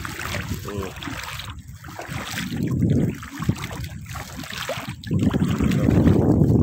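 Sea water sloshing and splashing around a person wading in the shallows, with wind rumbling on the phone's microphone, louder near the end.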